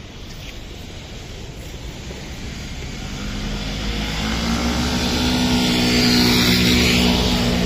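A motor vehicle approaching and passing close by: its engine and tyre noise build from about three seconds in to a peak around six seconds, over the general hum of city traffic.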